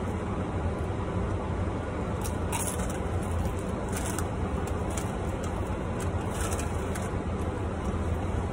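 Steady low rumble inside a car, with a few short crackly sounds about two and a half, four and six and a half seconds in.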